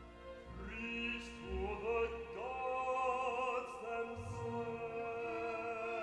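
An opera ensemble singing long held notes with vibrato. Voices come in one after another from about a second in and build up a full chord.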